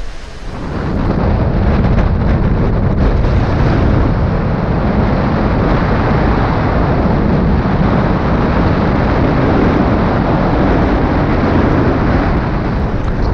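Wind buffeting the camera's microphone on a moving cruise ship's open deck: a loud, steady rumble with a rushing hiss that builds over the first second and then holds.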